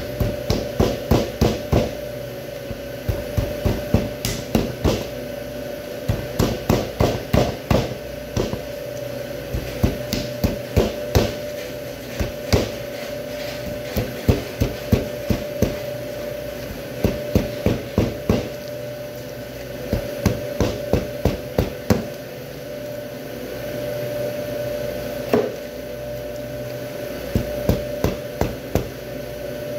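Long butcher knife hacking into beef rib bones on a cutting board, in quick runs of sharp chops, about three or four a second, with short pauses between runs. A steady hum runs underneath.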